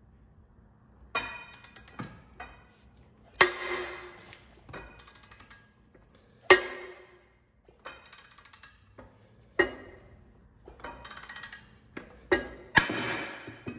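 Socket ratchet on a three-jaw gear puller's centre bolt, worked with a long bar extension: short runs of fast, even ratchet clicks as the handle swings back between strokes, and about six sharp, ringing metal clanks as the bar is heaved against the seized auger mount.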